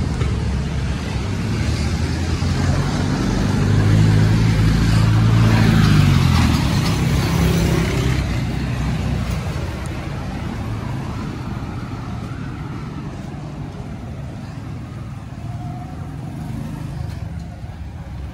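A motor vehicle's engine passes close by, growing louder to a peak about four to six seconds in, then fading away into quieter street traffic.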